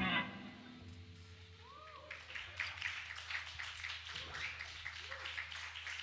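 The last chord of a live band's distorted electric guitars dies away at the start. What follows is steady amplifier hum, a few faint swooping guitar notes and a light patter of short sharp sounds between songs.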